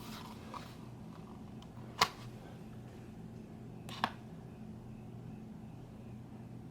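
Two short, sharp clicks about two seconds apart, the first louder, as a Lightning cable's plug is handled at an iPhone's charging port, over a faint steady low hum.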